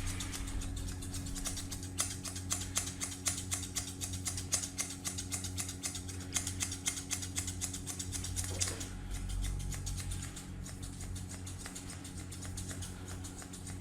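Grooming scissors snipping through a Pomeranian's fur in quick, rapid snips that thin out about nine seconds in, over a steady low hum.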